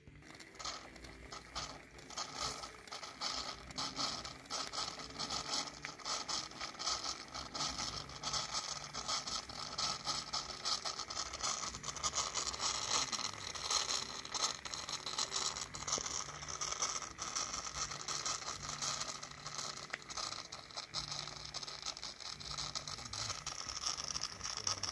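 A 1915 Bing gauge 1 live steam model locomotive running under steam with its wheels spinning free on a test stand: a steady hiss of steam leaking around the front cylinders, broken by rapid, uneven chuffs from the cylinders.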